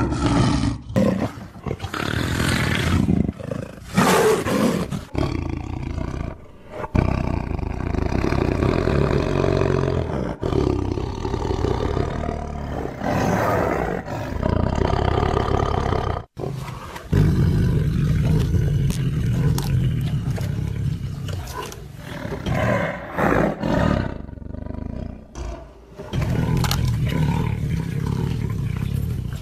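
Tiger roaring and growling: a string of deep, rough calls spliced together, with abrupt cuts between the segments.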